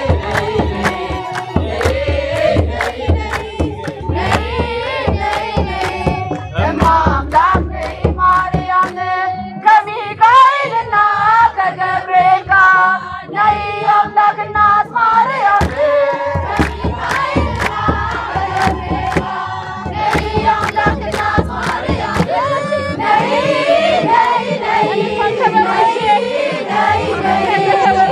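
A group of voices singing a church song together over a steady percussive beat.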